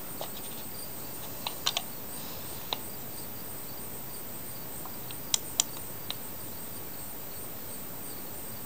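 A torque wrench and socket tightening a connecting-rod cap bolt on a Briggs & Stratton mower engine, making a few scattered sharp metallic clicks, with two louder clicks close together a little past the middle. The bolt is being brought up to 100 inch-pounds.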